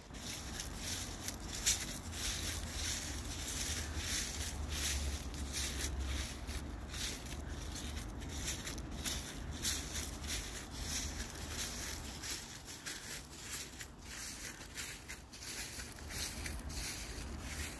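Outdoor woodland ambience: a steady rustling hiss with a low rumble underneath and many brief crackles.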